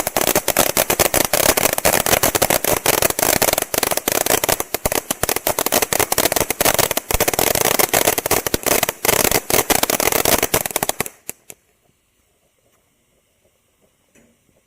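Ground fountain firework (WINDA Liberty Fountain) burning with a loud, dense crackle over its steady spray. About eleven seconds in it sputters out with a few last pops, and the burn ends.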